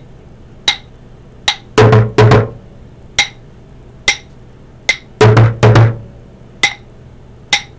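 Drumsticks played on an upturned plastic bucket: a repeating pattern of three light, sharp clicks followed by two loud, deep thumps, coming round about every three and a half seconds.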